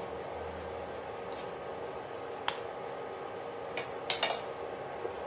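A few light clicks of a utensil against a ceramic bowl: one about halfway through, then a quick cluster near the end, over a steady background hum.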